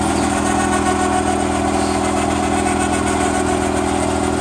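Kubota RTV500 utility vehicle's single-cylinder gasoline engine idling steadily just after a start.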